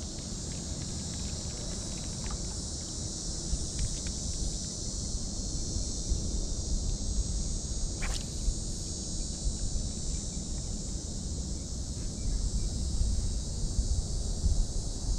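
Steady high-pitched insect chorus, with wind rumbling on the microphone underneath. A single sharp click comes about eight seconds in.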